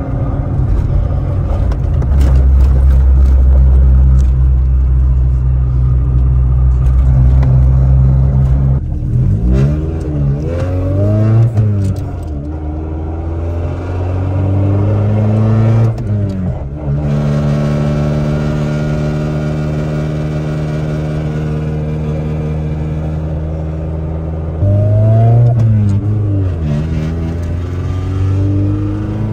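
1990 Honda Civic EF hatchback's engine and Yonaka aftermarket exhaust, heard from inside the cabin while driving. It gives a steady, loud drone, and the revs climb and drop several times: about a third of the way in, again midway, and near the end.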